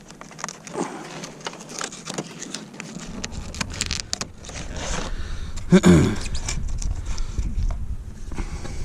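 A loose plastic radio bezel and its wiring plug being handled in a car dash: scattered clicks, taps and rustling, with a low rumble from about three seconds in. About six seconds in there is a brief grunt-like vocal sound, the loudest moment.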